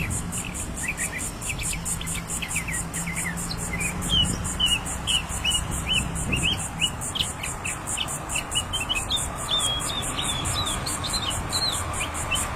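A bird calling a long run of short, quick chirps, several a second, over an evenly pulsing high-pitched insect trill.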